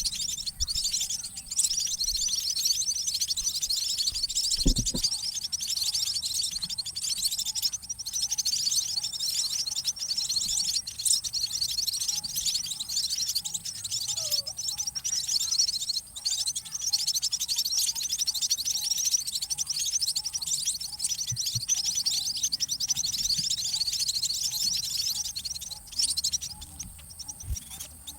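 Munia (emprit) chicks giving a rapid, high-pitched, continuous begging chatter while a parent feeds them.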